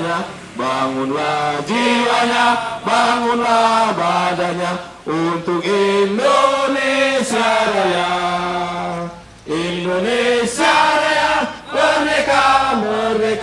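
A crowd of men and women singing a song together in unison, in long held notes with short breaks between phrases.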